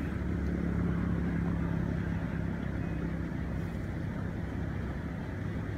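Steady low motor drone holding one pitch, which fades about three seconds in and leaves a low rumble.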